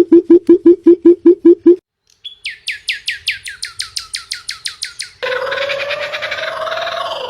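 Bird calls in three different bursts: a fast run of low repeated notes that stops just before two seconds in; after a short gap, a quick series of high chirps, each sweeping downward; then, from about five seconds in, a harsh, dense call.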